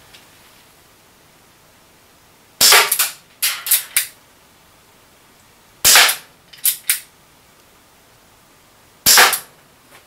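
Chiappa Rhino 50DS CO2 airsoft revolver firing three shots about three seconds apart. Each is a sharp gas report followed by a few lighter clicks.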